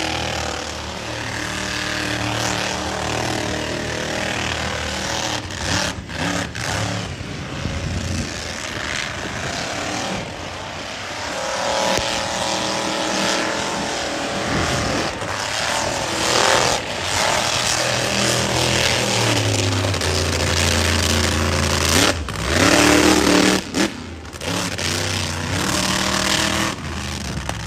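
Monster truck engine revving hard, its pitch climbing and dropping back again and again, loudest in a sharp run-up about twenty-two seconds in.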